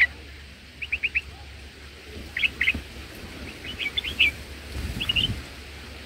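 Red-whiskered bulbul giving short bursts of quick, sharp chattering notes, four or five bursts spaced about a second apart. These are the calls of a parent bulbul at a nest that a snake has just raided.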